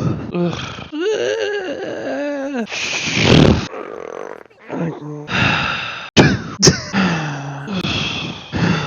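A person's wordless vocal noises, warbling up and down in pitch and groaning, broken by a short breathy burst and a couple of sharp clicks.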